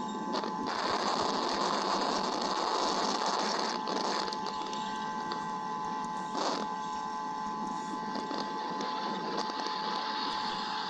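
Steady rain hiss from a thunderstorm on the nest-cam microphone, with a faint steady electronic whine under it and a few short crackles.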